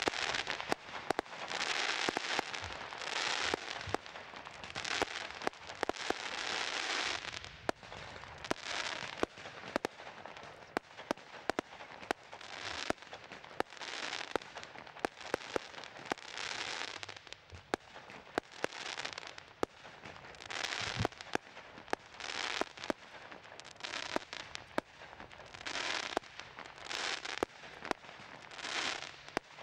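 37-shot firework cake firing its barrage: an irregular run of sharp bangs, with patches of crackling hiss lasting about a second between them.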